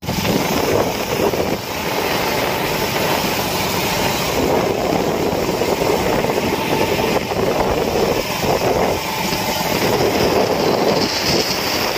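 Motorcycle engine, road and wind noise heard while riding on the back of a moving motorcycle: a steady, dense rumble that starts abruptly.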